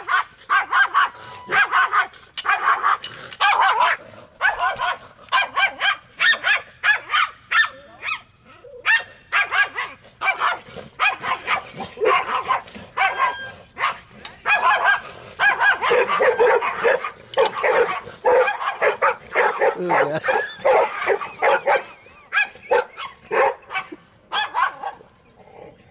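Small dog barking and yapping fast and over and over, with only a few short breaks: agitated barking at bigger dogs.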